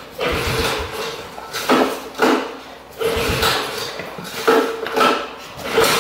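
Metal tools and parts clanking: a series of irregularly spaced sharp metallic clinks, each ringing briefly.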